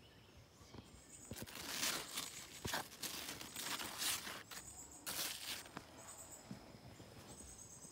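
Leaves of cucumber vines rustling as they are pushed aside and handled, in three short swells, with soft footsteps between. Faint short high chirps sound in the background.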